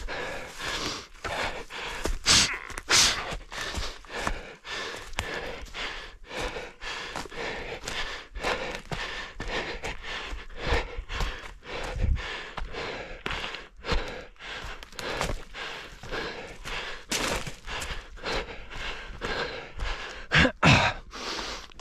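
A runner panting hard, breath close to a head-mounted microphone, with running footfalls at about three a second. Near the end there is a short, louder vocal sound.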